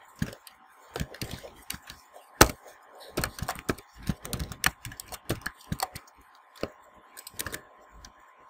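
Typing on a computer keyboard: irregular runs of individual keystrokes, some louder than others.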